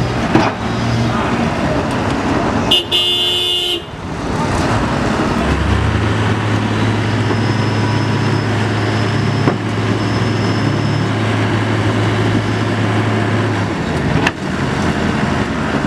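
Diesel engines of a wheel loader and a heavily loaded dump truck working in deep mud as the loader's bucket pushes the stuck truck forward. A horn toots once for about a second, about three seconds in, and from about five seconds a steady low engine drone holds until shortly before the end.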